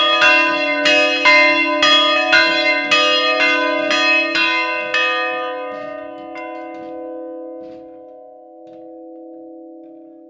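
Two church bells swinging and ringing, about two or three strokes a second. The strokes stop about five seconds in, a few weaker ones follow as the bells come to rest, and the hum then fades.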